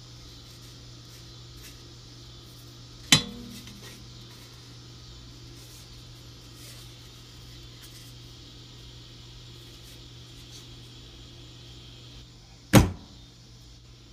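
Two sharp knocks from handling the metal popcorn-popper parts and tools, one about three seconds in and one near the end. The first has a brief metallic ring. A steady low hum runs underneath.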